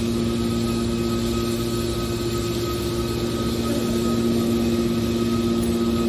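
Scrap metal baling press running: a steady machine hum with constant tones over an even noise, with no strokes or impacts.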